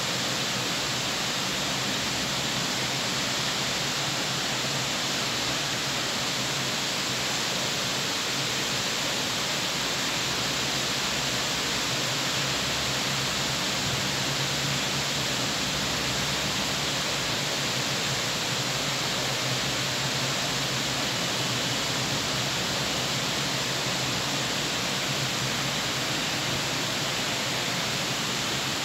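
Heavy rain falling steadily, a dense, even hiss that does not let up.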